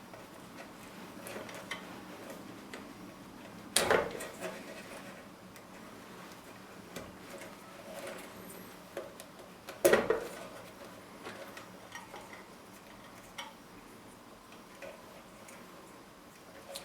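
Small metallic clicks and handling clatter as cable connectors are worked off and pushed onto the terminals of a replacement power switch. Two louder clacks come about four and ten seconds in.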